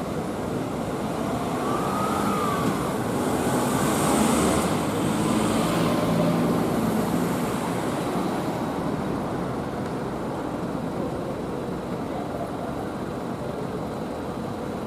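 Road traffic noise, with a vehicle passing close by: engine and tyre noise swell a few seconds in, then fade back to the steady hum of the street.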